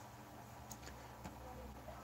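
A few faint, short clicks over a low steady hum, like light handling noise near the microphone.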